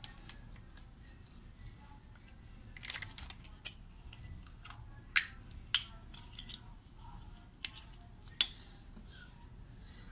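Scattered sharp clicks and light taps of kitchen things being handled over a quiet room background: a small cluster about three seconds in, then single clicks every second or two.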